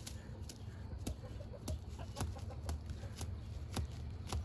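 Backyard poultry close up: a tom turkey displaying, with a string of sharp, irregular clicks and rustles and a few soft clucks.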